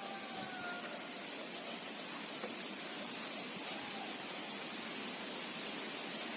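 A steady, even hiss with no clear source. A cat's meow trails off within the first second.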